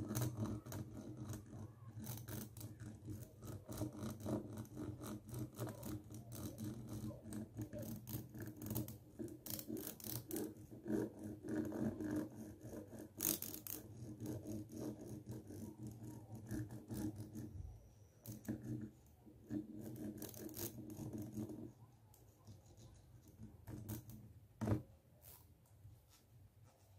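Green plastic comb scratched close to a microphone: a dense run of fast ticking and scratching from its teeth, thinning out about two-thirds of the way through, with one sharper click near the end.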